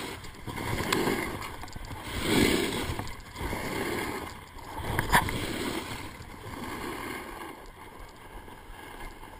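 Alpine snowboard edges carving on packed, groomed snow: a rushing scrape that swells with each turn, about one every second or so, with a sharp knock about five seconds in. The scraping eases off in the last couple of seconds as the board slows.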